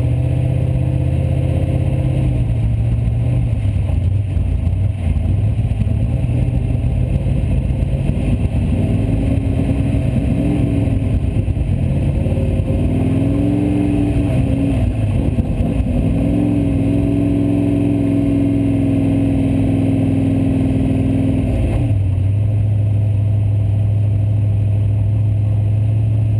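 Formula Offroad buggy engine heard from inside the cockpit as the car drives the course. The revs rise and fall several times and are held high for a few seconds, then drop suddenly about 22 seconds in to a steady lower idle.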